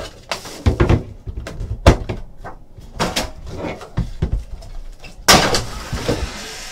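Trading-card box and packaging being handled and opened: a series of short knocks and clicks, then a louder rustling scrape about five seconds in.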